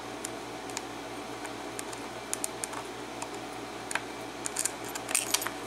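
A steel pick prying at the retaining clip on the back of a small pin-tumbler lock cylinder, giving scattered light metallic clicks that come more often in the second half.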